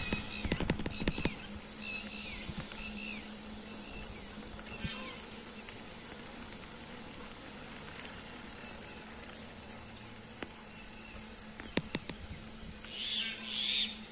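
Outdoor ambience along a road, with a steady low hum, a few short bird chirps in the first few seconds, and scattered clicks. Two brief, louder noisy bursts come near the end.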